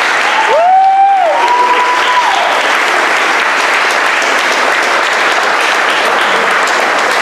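Audience and performers applauding, with steady dense clapping throughout. About half a second in, one drawn-out cheer rises and falls over the clapping and is the loudest moment.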